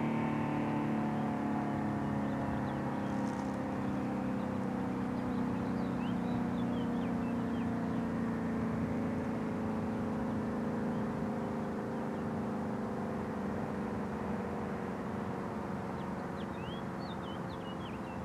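Federal Signal SD-10 dual-tone warning siren winding down at the end of its steady Alert signal: a chord of held tones sliding slowly lower in pitch and fading. Small birds chirp briefly a few times.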